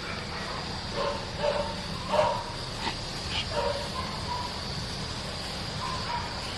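A dog barking, about half a dozen short barks in the first four seconds, the loudest a little past two seconds in.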